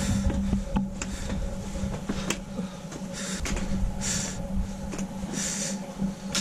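A person breathing hard, winded from walking uphill at high altitude with no energy left: a hissing breath about every second or so, over a steady low hum and low rumbling thumps.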